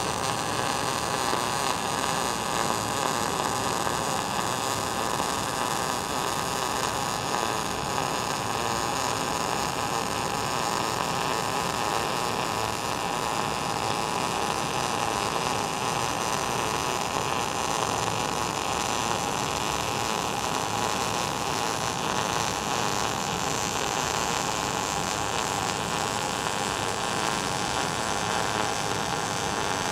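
ESAB Rebel 235 MIG welder running a steady arc along a corner seam, with a continuous, even crackle. It is feeding 0.035 wire under C25 shielding gas at 18.5 volts and 220 wire feed speed, settings in the short-circuit transfer range.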